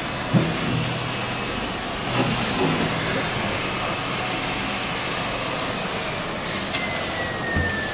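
Industrial sludge vacuum unit, used to suck coolant and sludge out of a CNC machine's sump, running steadily with a rushing hiss over a low motor hum. Near the end a faint whine slowly slides down in pitch.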